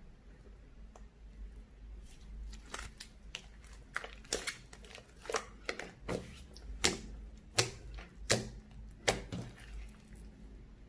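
Lipstick slime being pressed and worked by hand, giving sharp sticky clicks and pops. They come faintly at first, then louder about once every three quarters of a second from about four seconds in.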